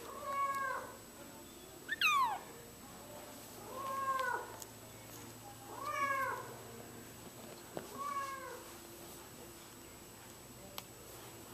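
Four-week-old F1 Bengal kitten meowing five times, about every two seconds. The second call is a higher, sharper cry that falls steeply in pitch and is the loudest.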